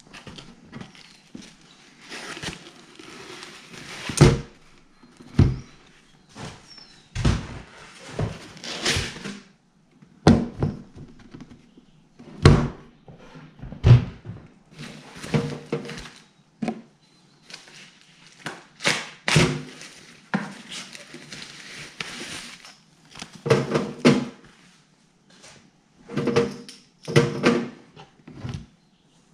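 Unpacking a Picobrew Z1 brewing appliance on a countertop: irregular knocks and thunks as the unit and its foam packing end caps are handled and set down, with rustling of foam and paper between them.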